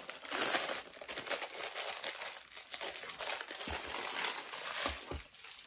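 Plastic packaging crinkling as a rolled diamond-painting canvas in its plastic sleeve is handled and unwrapped, loudest in the first second, with a few soft low thumps in the second half.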